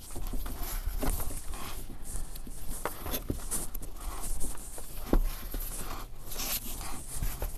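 Self-bonding rubber electrical tape being unrolled and stretched by hand around a hose joint, heard as irregular scraping strokes with scattered clicks.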